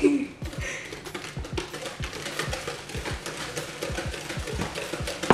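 Cake batter being beaten by hand in a plastic mixing bowl: a steady run of quick tapping strokes, about four a second.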